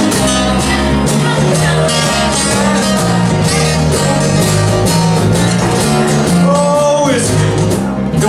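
Live blues band playing with a steady beat, on electric bass, two acoustic guitars and hand percussion.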